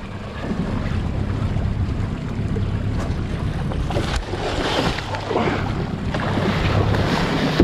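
Boat motor running steadily in gear with water sloshing against the hull, then from about four seconds in a hooked cobia thrashing and splashing at the surface as it is gaffed beside the boat.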